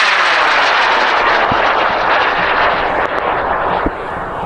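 High-power rocket motor burning as the rocket climbs after lift-off: a loud, steady rushing noise with a sweeping, phasing quality, easing off a little near the end.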